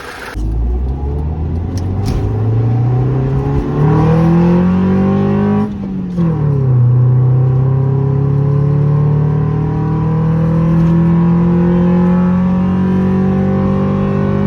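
Car engine accelerating under load, its pitch climbing steadily for about five seconds. Then comes a brief dip and drop in pitch, an upshift, after which it pulls again with slowly rising pitch.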